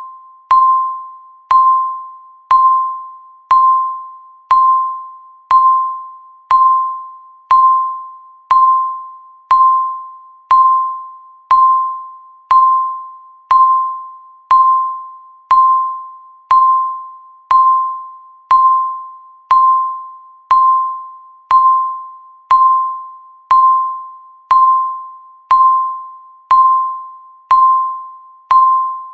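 Countdown timer beeping once every second: a single mid-pitched electronic tone that starts sharply and fades away before the next one, in a steady, even rhythm.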